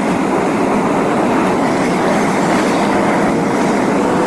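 Steady road and tyre noise of a car at highway speed, heard from inside the cabin, with a faint steady whine underneath.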